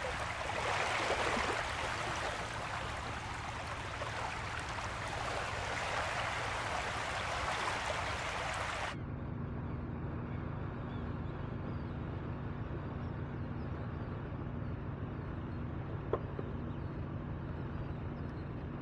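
Small waves lapping and washing onto a pebble beach, a steady hiss. It cuts off suddenly about halfway through and gives way to the steady low hum of a fishing boat's engine running across calm water.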